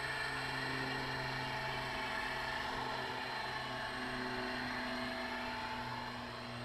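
Electric RC helicopter (an Align T-Rex 600E in a scale MD500E body) in flight: steady electric-motor whine and rotor hum, with small shifts in pitch as it manoeuvres.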